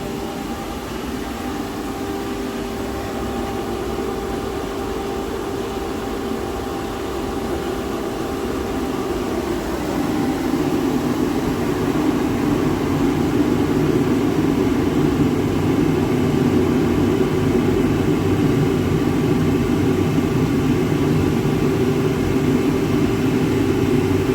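Commercial boiler burner firing just after light-off: a steady, loud rush of flame and combustion fan with a constant hum. It grows louder and deeper about ten seconds in as the firing rate rises.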